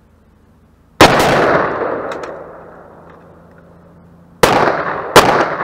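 Gunshots: one about a second in, then two more close together near the end, each followed by a long echoing tail that fades over a second or more.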